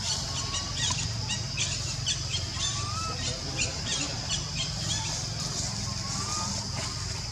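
Outdoor forest ambience: a steady high-pitched drone with quick chirps about twice a second and three short gliding whistles, over a low steady rumble.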